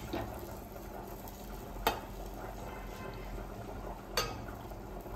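Fish curry bubbling at a steady rolling boil in a clay pot. A metal spatula clicks sharply against the pot twice, about two seconds in and again about four seconds in.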